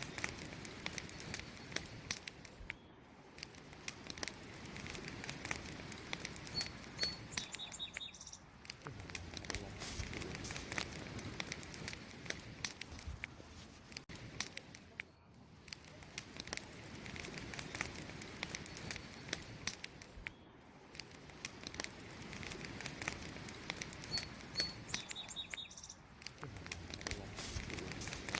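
Campfire of burning wood crackling and popping in a dense, irregular stream of small snaps over a soft hiss. A faint, brief high chirp is heard twice.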